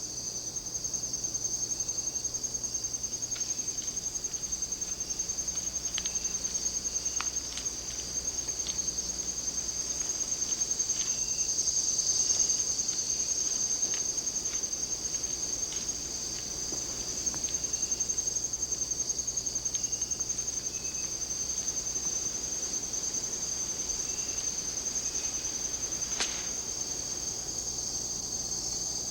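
Steady chorus of rainforest insects: one continuous high-pitched trill, with a few faint ticks and a single sharper click near the end.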